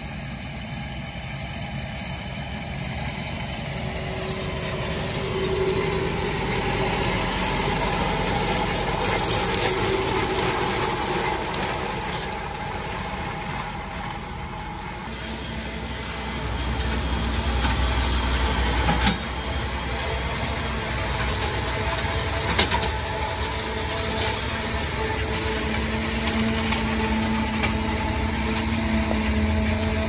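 Fendt tractor engines working in a grass field: first a tractor running past with a rotary rake in tow, then a larger Fendt pulling a combination round baler-wrapper, the engine louder and steady, with one sharp knock about two-thirds of the way through.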